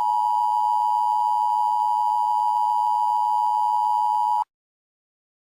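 Emergency Broadcast System attention signal: a loud, steady, single-pitched tone near 1 kHz that cuts off suddenly about four and a half seconds in.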